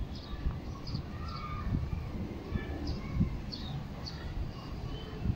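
Small birds chirping: short, high, falling notes repeating every half second or so, with a few lower calls. Under them is a low, gusty rumble.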